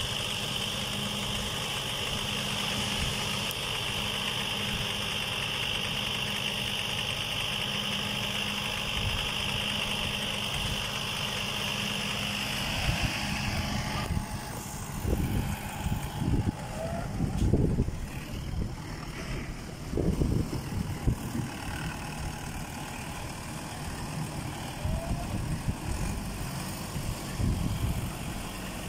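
Farm tractor engine idling steadily; its steady tone stops about halfway through, leaving uneven, gusty low rumbling.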